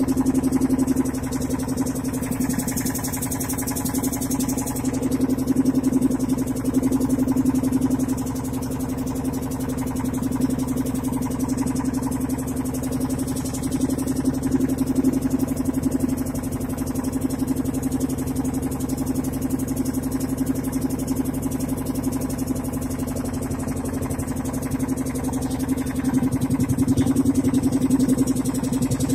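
A motorboat's engine running steadily, a constant low hum that swells slightly in loudness now and then.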